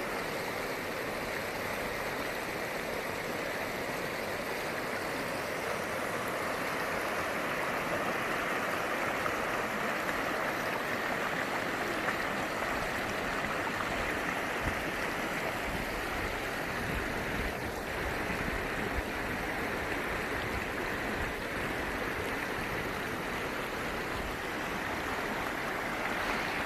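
Shallow, rocky mountain stream rushing over boulders and small rapids: a steady rush of flowing water.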